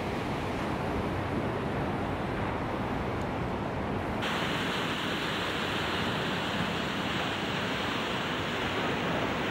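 Ocean surf breaking and washing in, with wind on the microphone. About four seconds in, the sound abruptly turns brighter and hissier.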